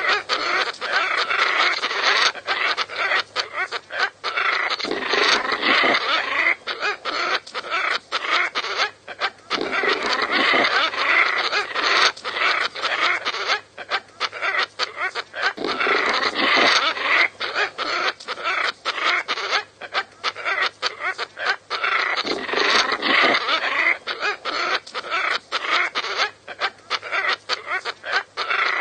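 Scarlet ibises calling: a dense, continuous run of overlapping calls that swells and eases every few seconds, over a faint steady low hum.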